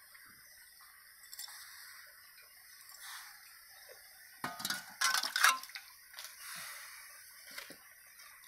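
Steel cooking pot and ladle clinking and knocking as the pot of liquid is handled, with a quick cluster of clinks about halfway through and a few faint knocks otherwise.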